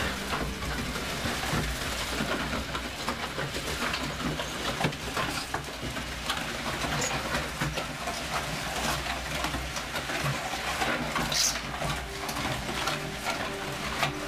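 Concrete mixer drum running, its paddles churning wet concrete with a steady gritty scraping and rattling over a low machine hum.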